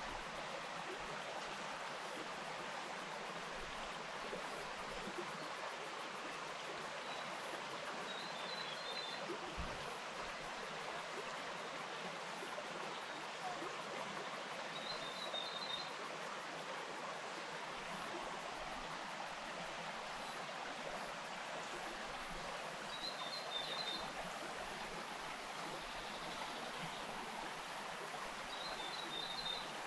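Bush stream flowing steadily over stones, a constant rush of water. A short burst of high chirps from a bird cuts in four times, about every seven seconds.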